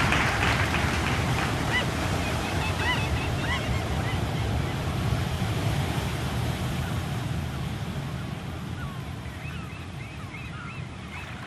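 Ocean surf washing steadily, gradually fading out, with a few short high calls scattered through it.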